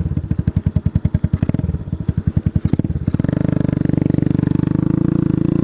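125cc cruiser motorcycle engine ticking over with an even, pulsing beat. About three seconds in, the revs pick up and it runs louder and steadier, its pitch climbing slightly as the bike gets under way.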